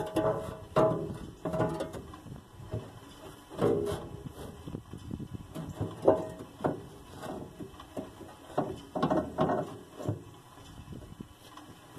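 Irregular clunks, knocks and scrapes of a steel fuel tank and its mounting hardware being shifted and held in place while a mounting bolt is fumbled into position.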